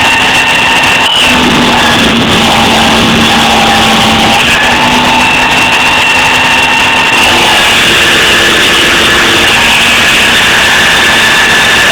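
Mini CNC mill running, its motors giving a steady whine over a noisy hum. The pitch shifts in steps about a second in and again about seven seconds in, as the machine changes moves.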